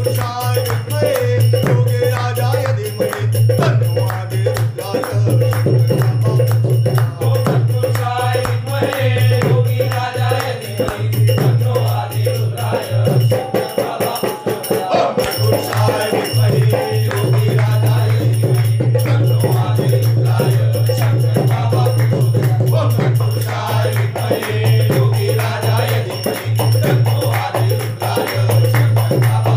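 Devotional music with a steady low drone and dense rattling hand percussion keeping a fast beat.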